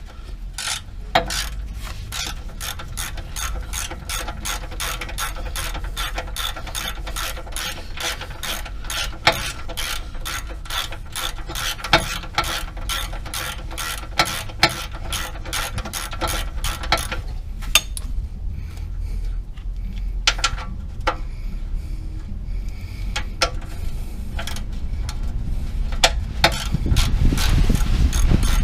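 Hand ratchet wrench clicking rapidly as its handle is worked back and forth, several clicks a second. The clicking thins out to scattered clicks in the second half, with a low rumble rising near the end.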